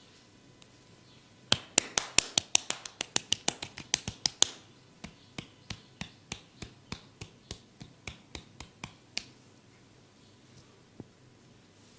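Sharp snaps from a barber's hands during a head massage: a fast run of about six a second, then a slower, even run of about three a second, and one last snap near the end.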